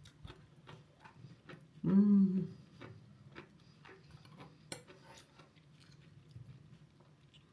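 A person chewing pickled cabbage: faint, irregular small clicks of eating, with one sharp click a little past the middle. About two seconds in there is a short hummed 'mm' from the eater.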